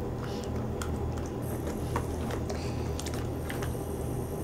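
Wooden sticks stirring Elmer's glue and activator into slime in a bowl: soft wet squishing with light clicks of the sticks against the bowl, a few sharper ticks spaced about a second apart, over a steady low hum.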